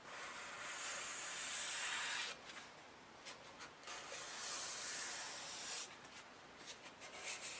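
Sandpaper rubbed by hand along a hardened stainless-steel knife blade, scrubbing off heat-treat scale: two long strokes of about two seconds each, the second starting about four seconds in.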